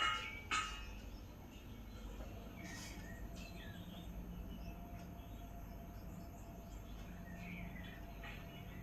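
Faint outdoor-style ambience: scattered short bird chirps over a low steady background, with a brief louder burst of chirping about half a second in.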